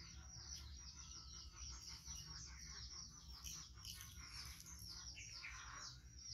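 Faint bird chirping: a rapid, even run of short high chirps, several a second.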